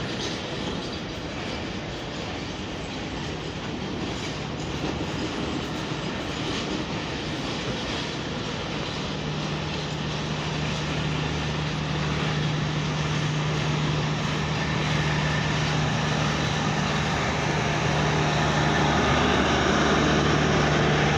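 Pakistan Railways passenger coaches of a long express train rolling slowly past at arrival, their wheels rumbling and clacking over the rails. A steady low hum grows louder from about halfway through.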